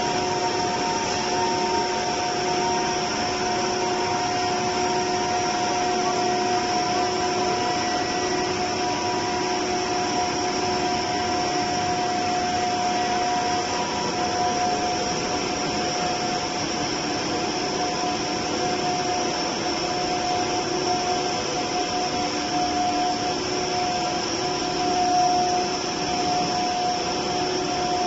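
PE315 polyethylene pipe extrusion line running: a steady machine whir with several constant whining tones over a hiss.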